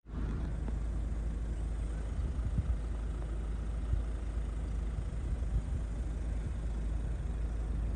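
Steady low rumble of a Mahindra Scorpio N SUV driving slowly on a rough track, heard from inside the cabin, with a few faint knocks.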